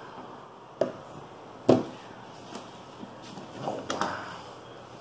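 Hard plastic mesh Wi-Fi units and their cardboard box being handled on a table. There are two sharp knocks, the second louder, about one and nearly two seconds in, then lighter taps and a short rustle near four seconds.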